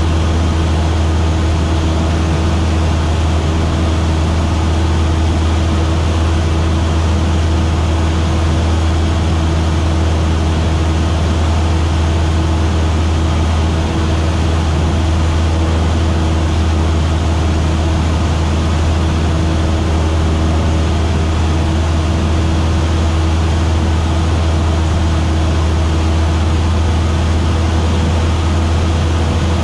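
Single-engine light aircraft's piston engine and propeller droning steadily in level cruise, with a constant low hum and no change in pitch.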